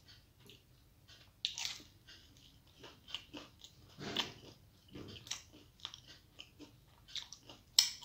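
Close-up chewing and biting of rice and crisp fried vegetables: irregular crunches and wet mouth sounds, with stronger crunches about one and a half and four seconds in and the loudest just before the end.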